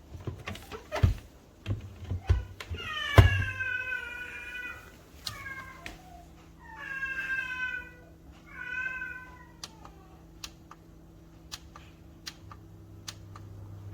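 Four drawn-out, wavering animal calls, starting about three seconds in, with a sharp click just before the first. Scattered lighter clicks and a steady low hum run beneath.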